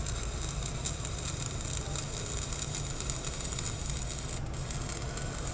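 Stick (MMA) welding arc from a Kenmax mini inverter welder set to 200 amps, a 3.2 mm electrode burning on thin steel plate: a steady crackling sizzle, with a brief drop about four seconds in.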